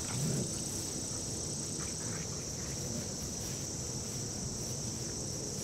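Steady high-pitched drone of insects, with a second, slightly higher layer that drops out about two seconds in.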